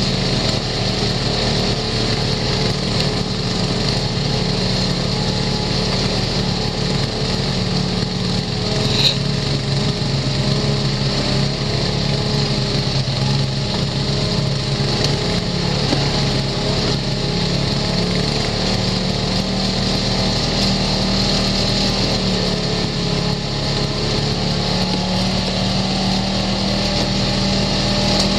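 Side-by-side UTV's engine running steadily at trail speed, heard from the driver's seat. One brief sharp knock about nine seconds in.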